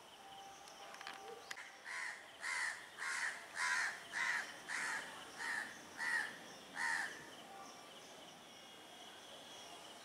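A bird calling about nine times in a row, a little under two calls a second, over a faint steady insect drone.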